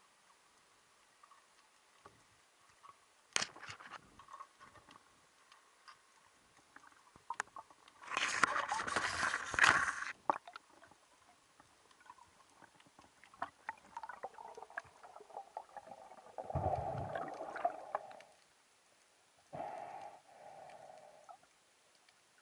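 Underwater sound heard through an action camera's waterproof housing during a freedive: scattered clicks and knocks, a two-second rush of noise about eight seconds in, and a muffled hum coming and going in the second half.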